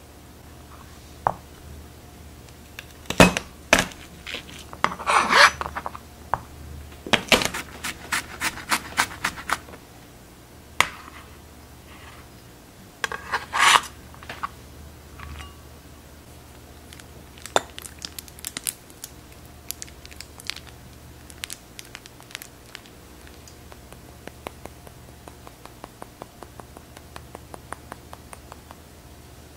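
Kitchen knife tapping and scraping on a cutting board, with clacks of utensils against a ceramic bowl: a few loud strikes, a quick run of chopping taps, then a scrape. Near the end comes a steady run of lighter taps, about three a second.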